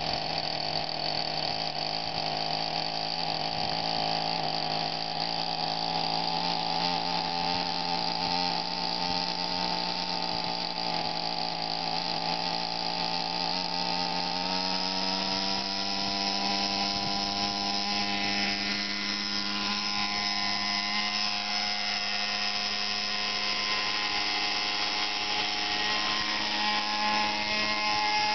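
Two-stroke Zenoah 20 petrol engine of a gas-converted Align T-Rex 600 RC helicopter running steadily with its rotor turning. The pitch rises about halfway through, and in the last third the tone bends and wavers as the helicopter flies.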